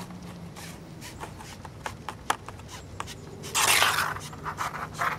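Nitrile-gloved hands rubbing white lithium grease along a speedometer cable, making light scattered clicks and rubbing noises. A louder scrape about half a second long comes a little past the middle.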